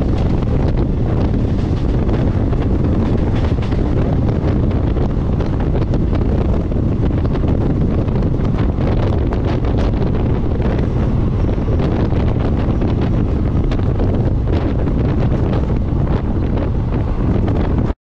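Wind buffeting the microphone held out of a fast-moving passenger train coach, over the steady rumble of its wheels on the track. The sound drops out for an instant at the very end.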